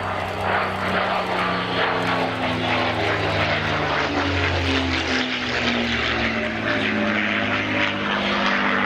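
Propeller aircraft's engines running loud and steady as it flies over, with many low tones that shift in pitch from moment to moment.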